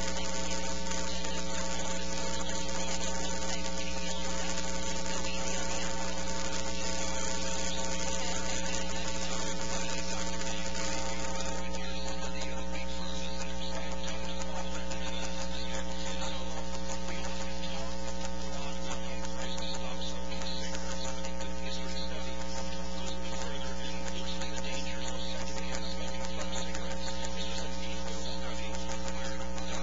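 Steady electrical mains hum in the recording's audio chain: a low drone with evenly spaced higher tones buzzing over it and a constant hiss, unchanging in level.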